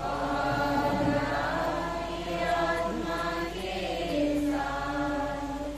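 Church congregation chanting the sung response to the liturgical greeting, many voices together holding steady pitched notes.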